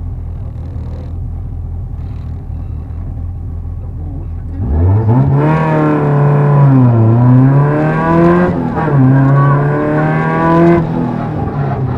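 Rally car engine idling at the stage start. About two-thirds of the way in it launches and revs hard, its pitch climbing and then dropping at each gear change, three times.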